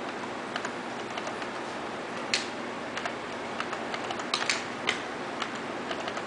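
Scattered clicks of keys on a computer keyboard, irregular and sparse, with the sharpest a little over two seconds in and a quick cluster around four and a half seconds, over a steady background hiss.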